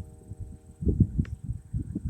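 Church bells' hum dying away, then a run of irregular low thumps and rumbles, loudest about a second in.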